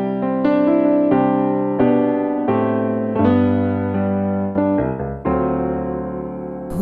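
Slow hymn introduction played on piano: one struck chord after another, about every half second, each left ringing.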